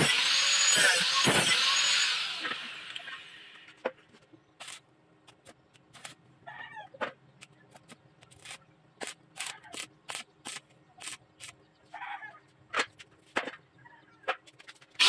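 Angle grinder grinding steel tubing, then switched off and spinning down over about two seconds. After that comes quiet with scattered sharp ticks and taps and two short crackling bursts, fitting brief tack welds on the tubing.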